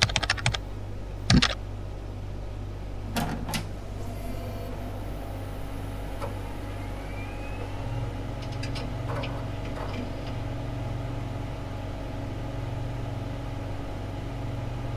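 Steady low motor hum with a few sharp clicks in the first four seconds and again around nine to ten seconds in, and a faint rising whine about seven seconds in.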